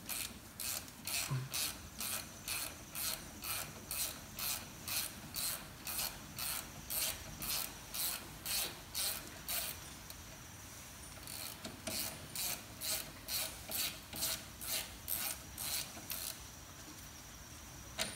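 Hand ratchet clicking in a steady rhythm of about two strokes a second as it backs out a brake caliper guide-pin bolt. The clicking breaks off briefly about ten seconds in, resumes, and stops near the end.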